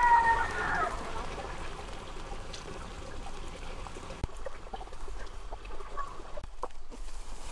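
A rooster crowing, the end of its call held on one pitch and stopping about a second in, then a faint steady trickle of water with a single sharp click about four seconds in.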